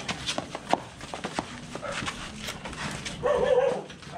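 Knocks and clatter as a motorcycle is lifted and set onto a metal hitch-mounted carrier, with a dog yelping briefly about three seconds in.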